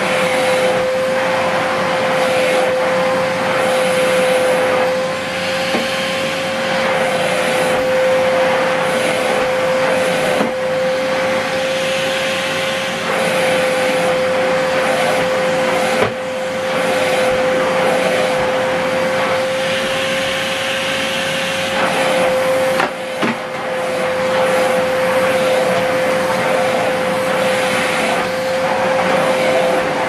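Hoover Whirlwind bagless cylinder vacuum cleaner running while its floor head is pushed over carpet: a steady motor whine over the rush of air. A few brief knocks break in along the way.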